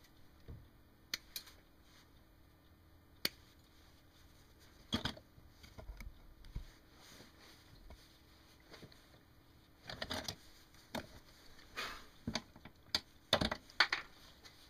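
Scattered sharp clicks and short scraping rustles as a wire stripper is worked and small wires and parts are handled. The busiest stretch comes in the last five seconds.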